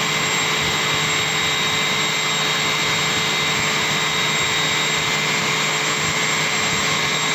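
Steady machinery noise: an even hiss with several high-pitched whining tones and a low hum running over it, keeping a constant level.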